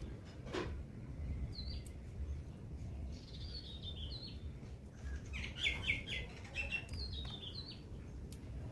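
Small birds chirping: short, high chirps in scattered groups, with a quick run of them a little past the middle, over a low steady rumble. A single knock sounds about half a second in.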